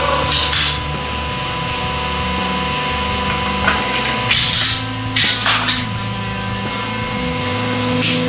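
Hydraulic press crushing a chrome-plated metal part. The metal gives way in sharp cracks and snaps, once just after the start and in a cluster about four and a half to five and a half seconds in.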